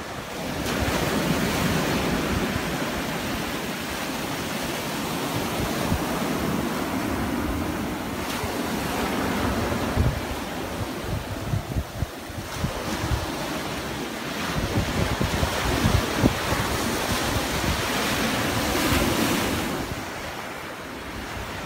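Sea surf breaking and washing over a shore of chalk boulders and sand, swelling and easing several times, with wind buffeting the microphone in gusts.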